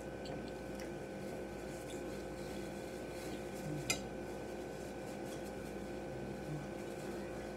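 Steady low room hum, with the faint rustle of a paper napkin as hands are wiped, and one light click about four seconds in.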